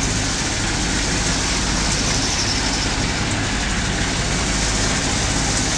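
Steady loud engine drone with a rushing hiss of wind and water over it, heard on board a motoring boat.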